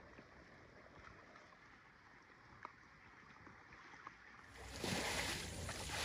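Faint outdoor noise with a couple of soft ticks, then about four and a half seconds in a louder, rushing noise with a low rumble takes over.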